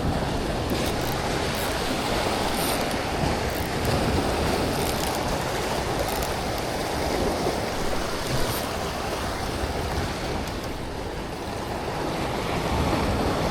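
Ocean waves and rushing water, a steady surf noise.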